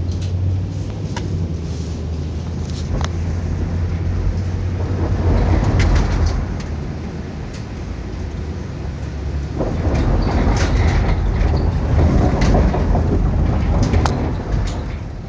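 A car's engine drone and tyre noise on a wet, icy road, heard from inside the vehicle, with a steady low hum and a rushing noise that swells twice as it drives. Scattered sharp clicks and cracks sound over it.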